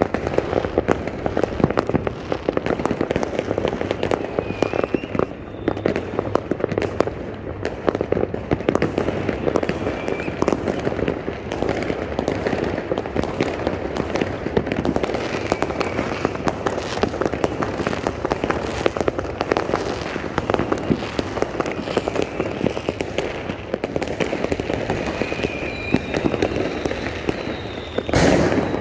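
A dense, continuous barrage of fireworks bursting and crackling all around, with short whistling glides now and then and one louder bang near the end.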